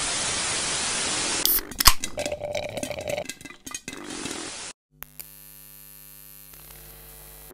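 Television static hissing for about a second and a half, then broken up by sharp clicks and stuttering electronic glitch effects. After a brief silence a quieter steady electronic drone is held.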